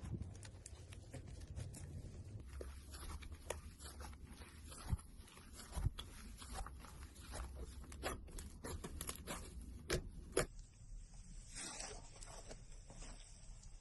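Slime being squeezed and pulled by hand, with irregular sticky crackles, clicks and a few louder pops.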